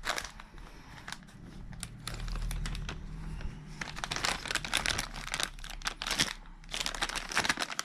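Plastic packets of instant food crinkling as they are handled, in crackly bursts that grow busier in the second half.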